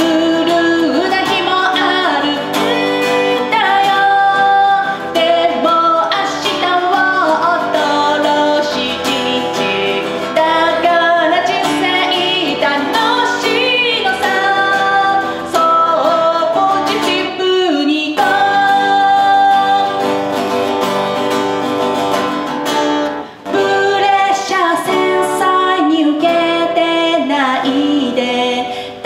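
A woman singing a song while strumming an acoustic guitar, with a short break between phrases about two-thirds of the way through.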